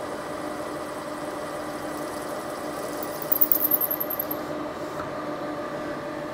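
Milling machine spindle running a 35 mm hole saw through a small workpiece, with a steady whine from the machine. About three seconds in there is a second or so of high-pitched screeching from the cut.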